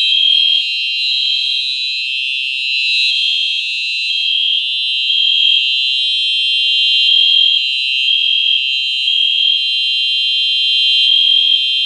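Simplex 4903-9241 fire alarm horn sounding steadily without a break after the pull station has been pulled: a loud, buzzy, high electronic horn tone.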